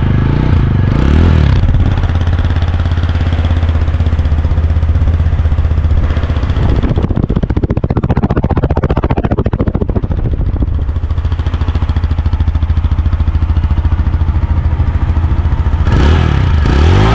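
TVS Apache RTR 160 4V's 159.7 cc air-cooled single-cylinder engine running, revved up about a second in and again near the end.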